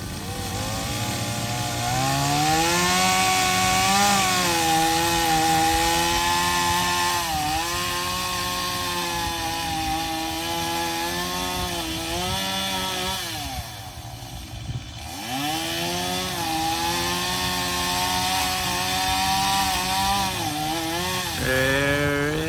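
Chainsaw running at high revs and cutting into a tree, its pitch dipping now and then under load. About two-thirds of the way through it drops to idle for a second or two, then revs back up and carries on cutting.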